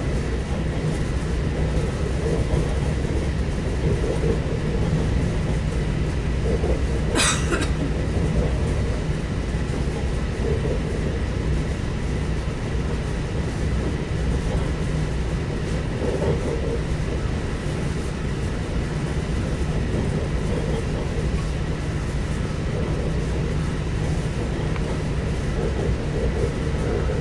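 Lastochka (Siemens Desiro) electric train running at high speed, heard inside the passenger car: a steady rumble of wheels and running gear with a faint steady whine. About seven seconds in there is a brief rushing hiss.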